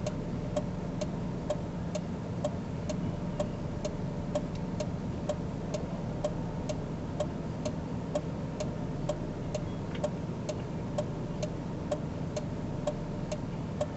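Steady, even ticking of a car's indicator flasher, about two ticks a second, over a low steady hum from the vehicle.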